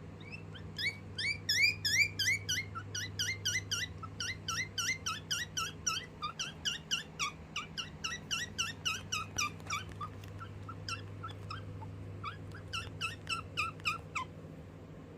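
Guinea pig chirping: a long run of short, high, bird-like chirps, each dropping in pitch, about four a second. They thin out for a couple of seconds and come back in a quick burst near the end. The owner takes the chirping as a sign that the guinea pig is scared.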